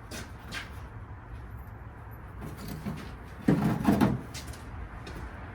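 Two quick, loud thumps about three and a half seconds in, amid faint clicks of handling.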